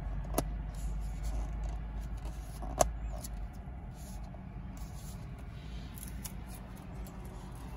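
Plastic lid pressed back onto a paper hot-drink cup: two short clicks, the louder one about three seconds in, over the steady low hum inside a car.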